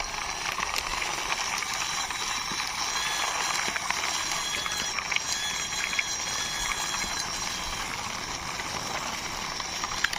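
Toy car pushed along by hand, its plastic wheels and gear mechanism making a steady rattling, ratchet-like whirr.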